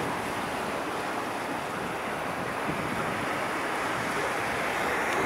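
Spray from a large musical fountain's water jets falling back onto the lake as the jets shut down at the end of the show: a steady rushing splash of water.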